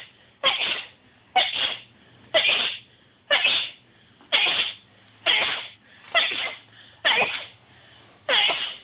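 A person sneezing over and over in a rapid fit, about nine sneezes roughly a second apart, each sharp and quickly fading.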